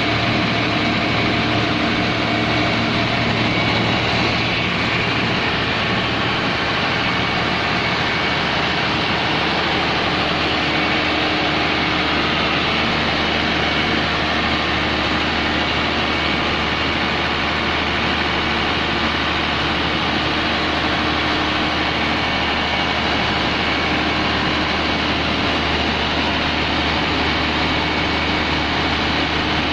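Komatsu SA6D110 six-cylinder diesel engine of an open-type 130 kVA generator set running steadily under test.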